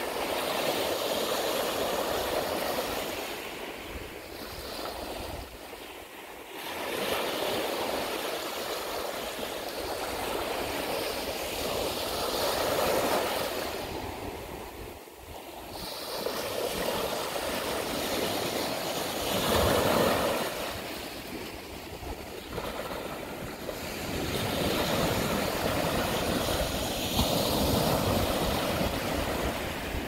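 Ocean surf: small waves breaking and washing up the beach, swelling and fading every several seconds.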